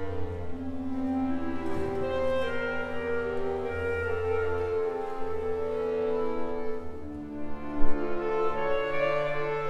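Accordion ensemble playing slow, sustained chords that change every second or two, with a brief low thump a little before the end.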